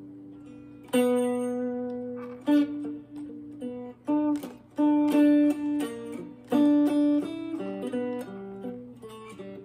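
Acoustic guitar played solo in a blues, with picked notes and chords struck one after another and left ringing.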